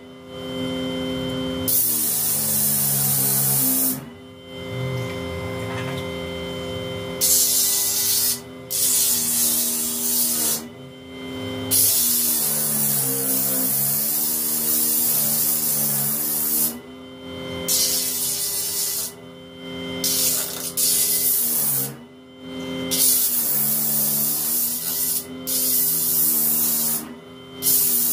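Small electric disc sander running with a steady motor hum while a mulberry wood spoon is pressed against the spinning sanding disc in repeated passes. A loud abrasive hiss of wood on sandpaper breaks off in short gaps whenever the spoon is lifted away, and the motor's pitch dips at times under the load.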